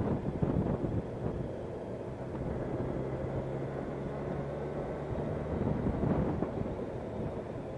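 Motorcycle riding along at low road speed, its engine running steadily under wind buffeting the microphone; a steady low engine hum stands out from about three seconds in to about five and a half.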